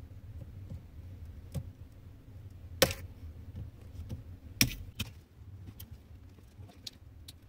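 Diagonal cutters snipping plastic zip ties on a car seat's wiring loom: a few sharp snaps, the loudest about three seconds in and another a second and a half later, with lighter clicks between them.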